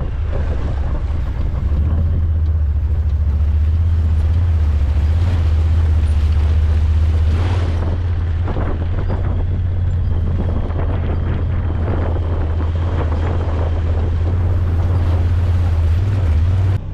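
A vehicle engine running steadily at a low, even pitch while riding, with wind rushing over the microphone. The drone shifts slightly lower about halfway through and then holds.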